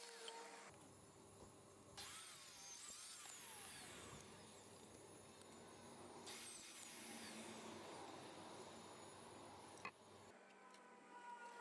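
DeWalt sliding miter saw cutting 2x4 lumber, heard faintly. The motor starts suddenly about two seconds in and again about six seconds in, and its whine falls in pitch after each cut. A sharp click comes near the end.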